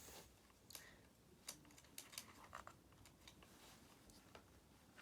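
Near silence with faint, scattered light clicks and taps from hands and small tools handling an RC car's parts.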